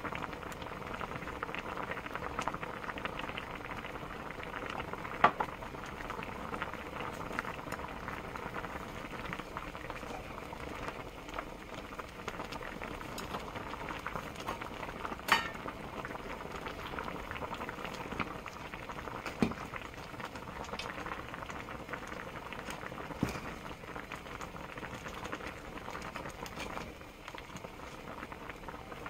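Clam knife-cut noodle soup at a rolling boil in a wide pot: steady bubbling, with a few sharp clicks along the way.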